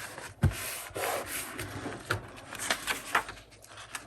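Paper being handled and rubbed against a tabletop: a light knock about half a second in, then a couple of seconds of rubbing and scraping that fades near the end.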